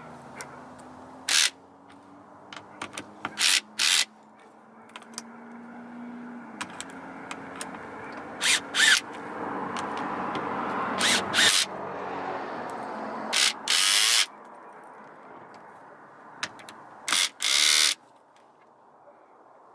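Handheld power driver run in short bursts, about a dozen pulses of a fraction of a second each, with a steadier hum swelling in the middle.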